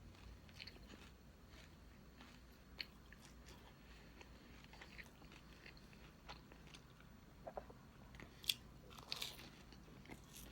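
Close-miked mouth sounds of someone eating cake: quiet chewing with scattered short, wet clicks, a few louder clicks near the end.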